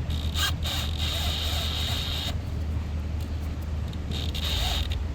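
A steady low mechanical hum with a few light clicks and rustles of hand-tool work in a car's engine bay, and a hiss that comes and goes.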